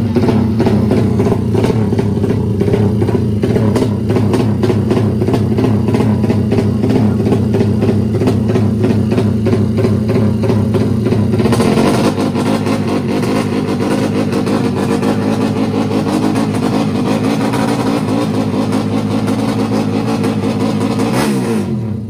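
A drag-racing motorcycle's engine running loudly and steadily at the start line, held at a high idle. Near the end the revs dip and then rise again.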